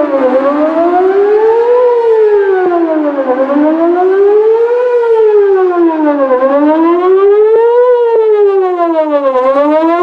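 Whelen WPS-4004 electronic outdoor warning siren sounding a wail during its monthly test: a loud tone rising and falling smoothly, one full cycle about every three seconds.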